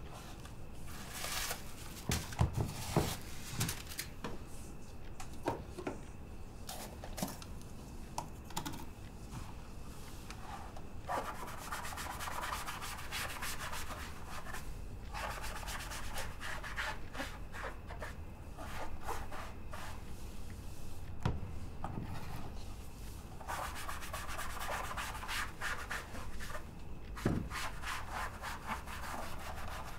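A shoe being rubbed and sanded by hand at a shoemaker's workbench, in scratchy stretches of several seconds, with a few knocks as it is handled.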